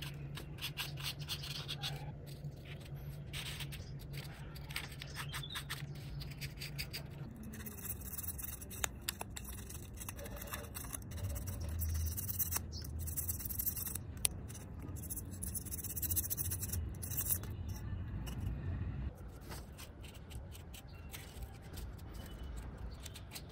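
Pencil scratching on an expanded polystyrene (thermocol) block. About seven seconds in, a hobby knife takes over, cutting and scraping through the foam with a louder hiss and occasional knocks. In the last few seconds it gives way to quieter light scraping as glue is spread on a foam sheet with a wooden stick.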